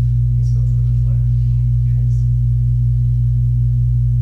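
A loud, steady low hum with no change in level, with faint voices briefly audible beneath it.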